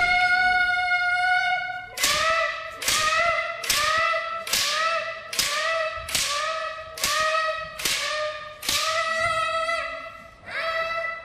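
Kendo kirikaeshi: a bamboo shinai cracking against the receiver's shinai about once a second, each strike joined by a child's high kiai shout held steady until the next cut. There is a short break near the end before one more strike.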